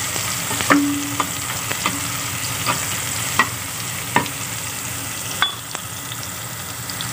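Sliced onions sizzling in hot vegetable oil in a pan at the start of a light fry. A steel spoon stirs them, scraping and giving about seven sharp clicks against the pan.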